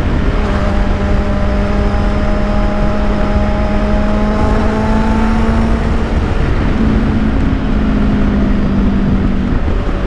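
Kawasaki Z800 inline-four with an Akrapovic exhaust, running under way at speed. The engine note climbs slowly for the first several seconds, steps up about seven seconds in and drops just before the end. Heavy wind rumble on the microphone runs under it.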